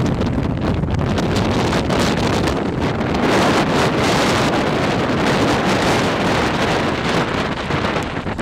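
Strong storm wind blasting across the camera microphone, a loud, steady rush that grows stronger and brighter about three seconds in.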